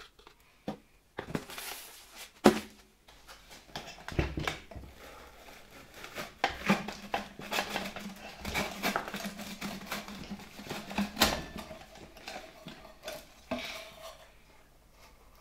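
An irregular string of metal clinks, knocks and scrapes as the rusty steel housing and cover of an old Gamma II vacuum cleaner are handled and opened.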